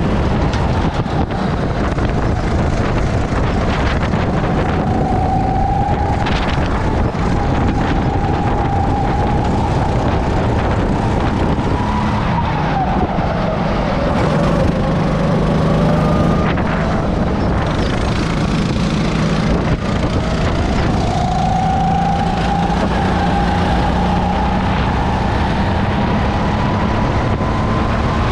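Racing go-kart engine heard from the driver's seat at speed, with a constant heavy rumble. Its pitch climbs slowly along the straight, falls as the kart slows for a corner about halfway through, then climbs again as it accelerates out.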